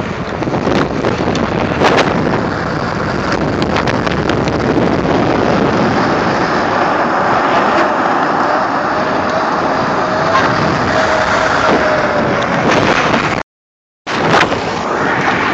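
Steady rushing noise of wind on the microphone and tyres on asphalt while riding along on a bicycle, with a faint steady whine from the small ATV's motor in the middle. The sound cuts out completely for about half a second near the end.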